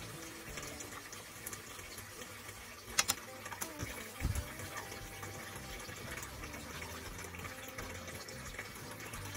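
Miso ramen soup simmering in a frying pan on a gas stove: a steady bubbling hiss. About three seconds in come two sharp clicks of utensils, then a dull knock a second later.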